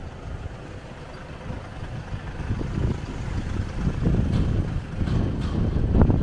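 Wind buffeting the microphone in gusts of low rumble over city street traffic, the gusts growing stronger in the last two seconds.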